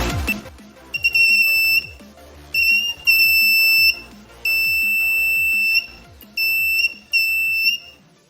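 Buzzer of a homemade BC547 transistor fire alarm sounding a steady high-pitched tone in six irregular on-off beeps, each about half a second to a second and a half long: the heat sensor has set the alarm off.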